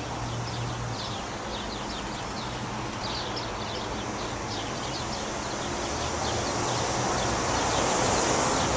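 Small birds chirping repeatedly over steady traffic noise, with the traffic noise swelling near the end as a vehicle passes.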